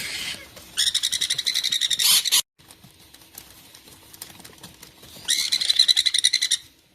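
Parakeet chicks calling in two bursts of rapid, pulsed chirping. The first starts about a second in and cuts off abruptly. The second comes near the end, with fainter chirps in between.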